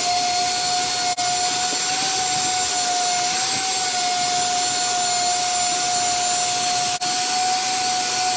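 High-speed electric power tool running at a steady speed, polishing a corroded battery-cable terminal to cure a bad connection that is keeping the tractor from getting full voltage. It gives a constant high whine over a gritty hiss, with two very brief breaks.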